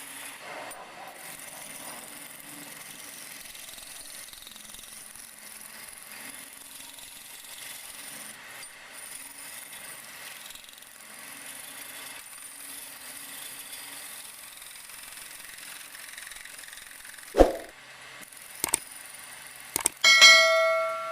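Steady workshop machine noise, likely the wood lathe running, then a sharp knock, a couple of clicks and, near the end, a loud metallic clang that rings and fades.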